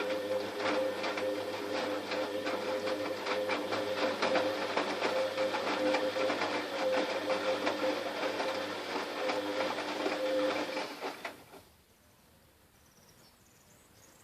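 Fagor washing machine running, a steady motor whine with rapid mechanical clicking, which stops about eleven seconds in.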